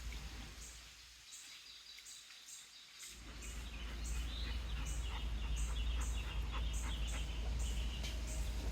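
Outdoor ambience: a short high chirp repeating steadily about twice a second, with scattered bird-like calls. A low rumble on the microphone sets in about three seconds in and stays.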